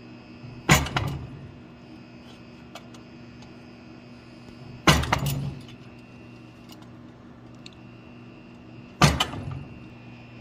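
Three heavy hammer blows on a punch held against the steel workpiece, about four seconds apart, each followed by a couple of quick lighter bouncing hits and a short metallic ring, over a steady background hum.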